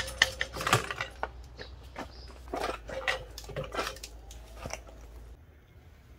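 Irregular metal clanks and clinks, some briefly ringing, as an old rice-transplanter transmission and a wrench knock against a steel frame while the gearbox is unbolted and lifted out. The knocking dies away about five seconds in.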